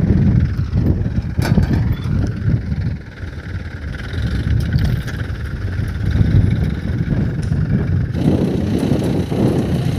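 Mahindra 575 DI tractor's four-cylinder diesel engine running steadily under load while pulling a seed drill through the field. About eight seconds in, the sound changes abruptly to a fuller, closer version of the same engine.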